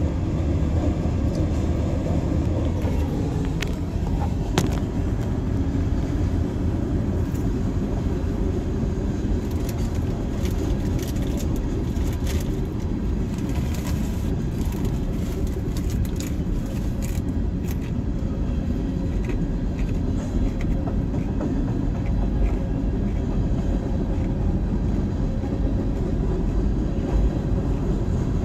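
Freight train rolling past: a steady low rumble of the cars on the rails with scattered sharp clicks from the wheels, heard from inside a car.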